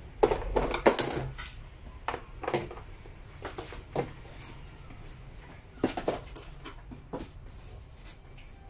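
Hard plastic knocks and clicks as a rotary hammer drill is handled and set down in its plastic carrying case. A cluster of sharp knocks in the first second and a half, then single scattered clicks.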